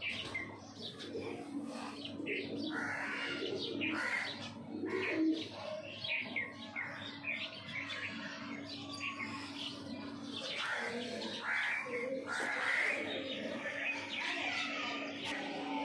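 Birds chirping and calling, many short calls one after another.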